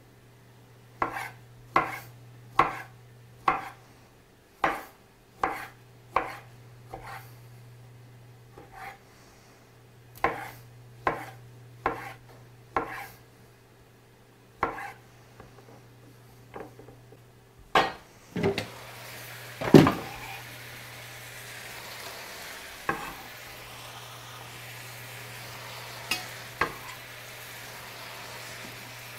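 A chef's knife slicing plums on a wooden chopping board, knocking on the board about once a second. About 18 seconds in, the plum pieces go into a hot pan of duck strips and vegetables, which sizzles steadily, with a loud clatter as they land and a few lighter knocks.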